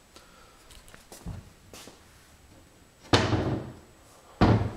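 Wooden kitchen cabinet doors under the sink being shut: two loud bangs about a second and a half apart, the first with a short fading rattle, after a few faint handling knocks.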